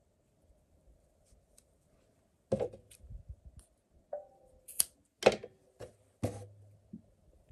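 Small scissors snipping cotton crochet yarn: a quick series of about six or seven sharp snips and clicks, starting about two and a half seconds in.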